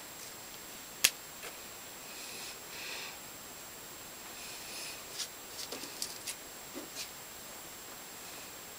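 Hands handling small foam and paper craft pieces on a board: one sharp click about a second in, soft rustles, then a run of light taps and clicks, over a steady faint hiss.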